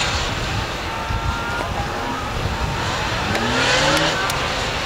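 Police motorcycle engine revving as the bike accelerates, with the pitch rising quickly several times about three seconds in.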